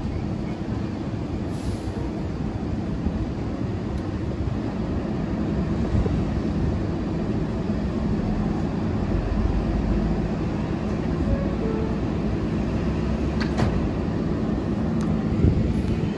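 R188 subway train running on the 7 line: a steady rumble of wheels on the rails, with a couple of sharp clicks late on.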